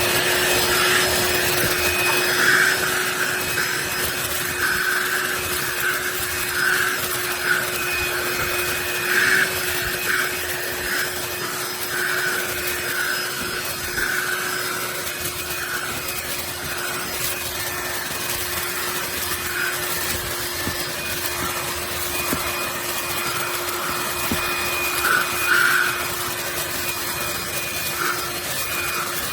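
DeWalt 20V cordless handheld vacuum running steadily with a high motor whine, its round brush attachment rubbing over car carpet in irregular scratchy swells as it picks up debris.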